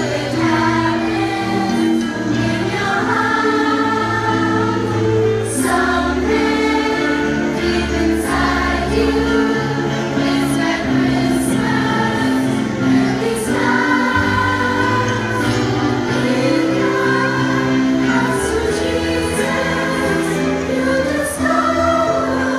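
A choir of children and adults singing a Christmas carol together over an instrumental accompaniment that holds sustained low bass notes.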